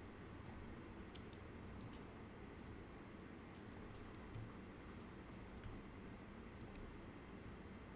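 Faint, scattered clicks of a computer mouse button, several irregularly spaced, over a low steady hum.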